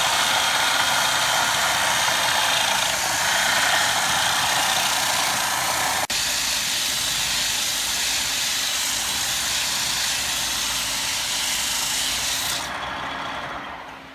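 Wood being cut on a lathe: a steady, loud hissing cutting noise. There is a momentary break about six seconds in, and the noise dies away near the end.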